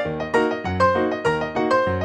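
Piano music: a tune of struck notes, several each second, each starting sharply and fading.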